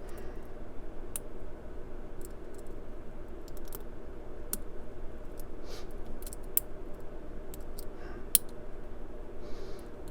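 Lock pick and tension wrench working the pins of a Brinks 50 mm padlock: scattered, irregular light metal clicks and scratches, over a steady low hum.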